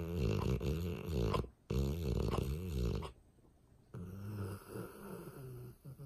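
A dog snoring in her sleep: two loud snores in quick succession, then a quieter one about four seconds in.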